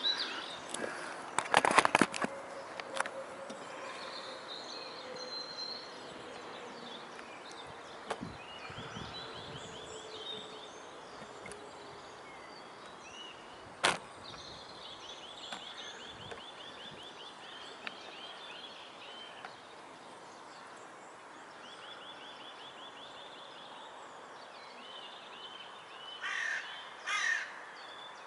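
Outdoor ambience with songbirds singing short repeated trills every few seconds and two harsh calls near the end. A burst of knocks comes about two seconds in and a single sharp click comes midway.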